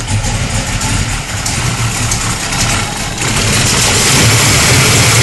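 The Capri's newly fitted twin-turbo Chevrolet engine running on its first start after two years. It runs steadily, then grows louder about three seconds in.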